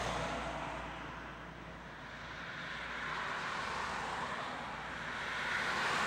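Road traffic: a minivan driving toward the microphone, its tyre and engine noise swelling to its loudest near the end.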